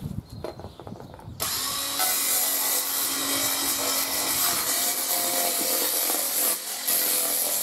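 Handheld power saw cutting lengthwise through a PVC cladding board, starting about a second and a half in and running steadily, with a brief dip near the end.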